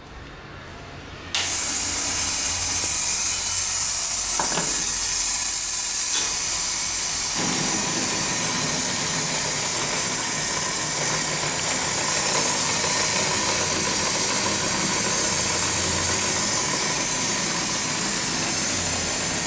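Elide dental vacuum investment mixer switched on about a second in: a loud, steady hiss of air being drawn by its vacuum. About seven seconds in, a lower steady running note joins the hiss, as investment powder and liquid are evacuated of bubbles and mixed.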